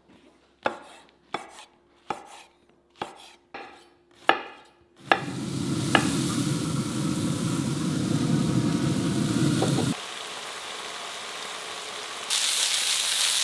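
A knife chopping vegetables on a wooden cutting board, a run of sharp chops about two-thirds of a second apart. About five seconds in it gives way to the steady sizzle of vegetables frying in olive oil in a pan, which drops back about ten seconds in and comes up louder and brighter near the end.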